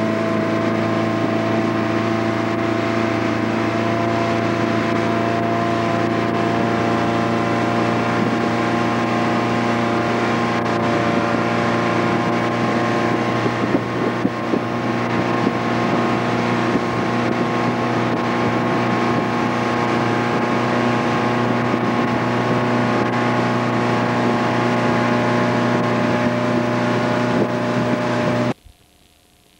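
Motorboat engine running steadily at towing speed, with water rushing in the wake and wind on the microphone. The sound cuts off abruptly near the end.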